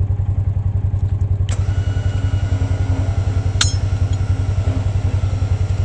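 Engine idling steadily with an even low pulsing, with a knock about one and a half seconds in and a sharp click a couple of seconds later.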